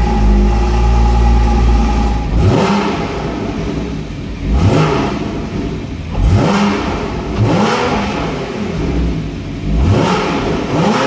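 Porsche Boxster GTS's 3.4-litre flat-six, just started, idling fast and steadily, then revved in a series of sharp throttle blips about every one to two seconds with the car standing still. Heard from the driver's seat.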